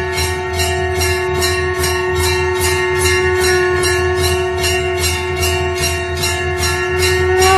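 Small bells jingling in a steady rhythm, about three or four strokes a second, over a sustained ringing drone tone.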